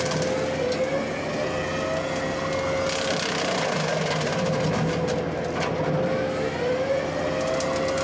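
Kubota SSV75 skid steer's diesel engine and the hydraulic drive of its direct-drive brush mower running under load, with a steady whine that bends up in pitch twice. The spinning blades crack and chop through English buckthorn branches in a continuous crackle.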